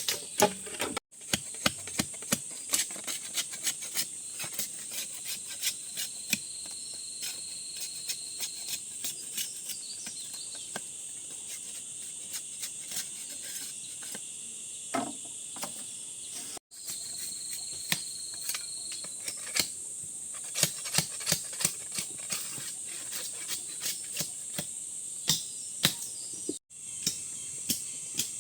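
Steady high-pitched chirring of insects, with many irregular sharp knocks and taps on top, like hammering or chopping.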